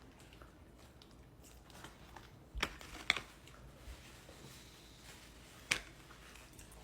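Close-miked eating of animal-style fries: quiet handling and mouth sounds, with three sharp clicks, two close together a little before the middle and one near the end.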